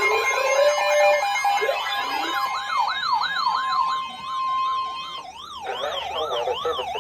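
Electronic weather-alert alarms sounding together: several siren-like tones sweep up and down over one another, over a steady high beep that cuts off about five seconds in.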